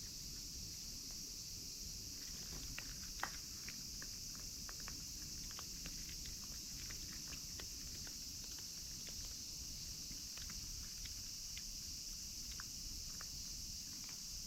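Steady high-pitched chorus of insects, with scattered light clicks and ticks over it, one a little louder about three seconds in.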